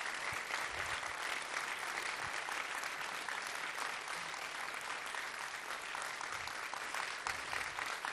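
Audience applauding: a steady wash of many hands clapping.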